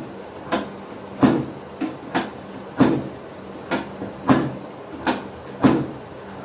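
About nine sharp knocks at uneven intervals, one or two a second, during a chiropractic adjustment, stopping shortly before the end.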